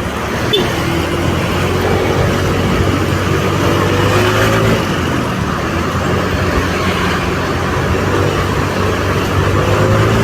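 Vehicle in motion on a road: a steady low engine and road-noise drone, with faint wavering tones over it.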